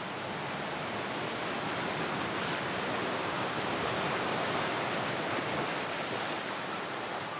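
Sea surf breaking and washing over a rocky shore: a steady wash of wave noise that swells a little in the middle.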